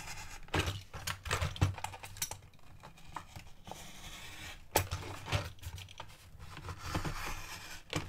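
Thick cardboard packaging card being scored and torn open with a thin pointed blade: irregular scratching, small tears and crinkling of the card.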